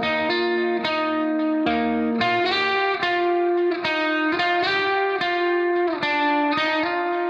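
Background music: a guitar playing a melody of plucked notes, each changing every half second or so.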